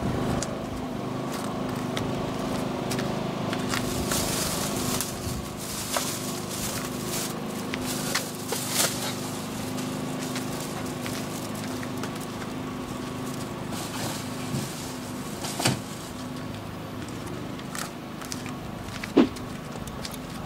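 Camping gear being unloaded from the back of a small 4x4: scattered clicks, knocks and rustles of plastic bags and footsteps, over a steady low mechanical hum.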